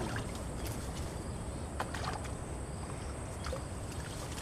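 Quiet waterside ambience: a steady high insect drone over a low rumble, with a few faint clicks.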